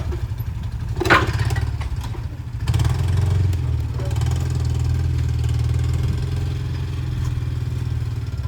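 A vehicle engine running steadily with a low drone, pulling harder and louder from a few seconds in, with a brief louder noise about a second in.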